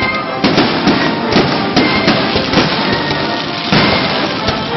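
Fireworks going off in quick succession: repeated sharp bangs over a dense crackle, with music faintly underneath.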